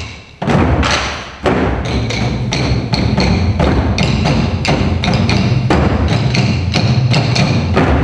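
Korean barrel drums (buk) beaten with wooden sticks by an ensemble. After a brief lull at the start there is a single stroke, then a heavy stroke about one and a half seconds in, and from then on a fast, even drumbeat.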